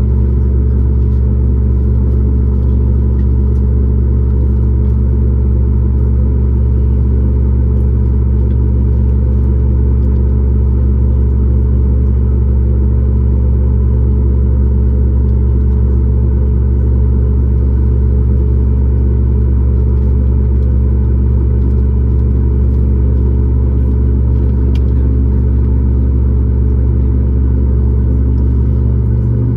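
Cabin noise of a Boeing 737 MAX 8 heard from a seat just behind the wing: a loud, steady rumble from its CFM LEAP-1B jet engines and airflow, with several held low tones.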